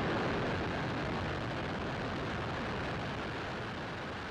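Falcon 9's nine Merlin 1D first-stage engines just after liftoff: a steady, deep rush of rocket exhaust noise that slowly grows fainter as the rocket climbs.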